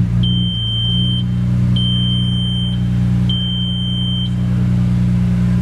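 Audi B5 S4's 2.7-litre twin-turbo V6 idling steadily after a twin fuel pump install. Three long high beeps, each about a second long, sound over it in the first half.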